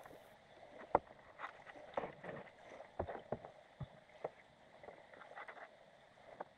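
Underwater sound picked up through a GoPro's waterproof housing inside a lobster trap: scattered, irregular muffled knocks and clicks over a faint hiss, played back at double speed.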